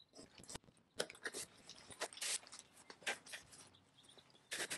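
Faint, irregular scrapes, crinkles and rustles of a cardboard box being opened and slid out of a nylon tent carry bag.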